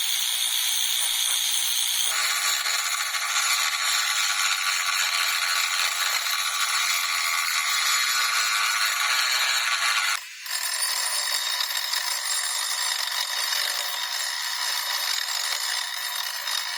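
Power tool grinding or sanding, a steady hissing abrasive noise with faint high ringing tones, which changes abruptly about two seconds in and again about ten seconds in.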